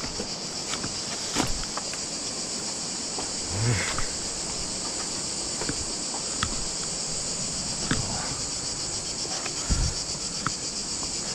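Steady, high-pitched chorus of insects, with scattered knocks and scuffs of footsteps on rock, and a dull thump about four seconds in and again near the end.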